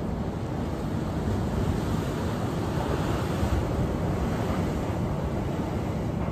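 Ocean surf washing steadily, mixed with wind rumbling on the microphone; the wash swells a little about halfway through.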